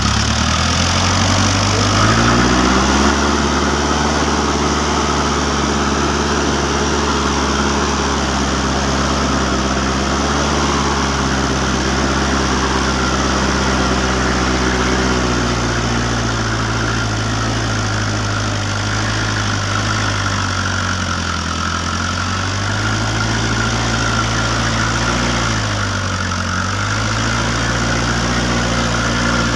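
Engine of a homemade farm truck running steadily. Its speed rises about two seconds in, eases off about halfway through, and dips briefly twice near the end.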